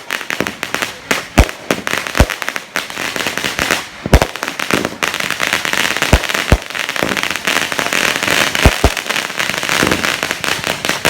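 Firecrackers going off: a dense, continuous crackle punctuated by sharp, louder bangs at irregular intervals of a second or two.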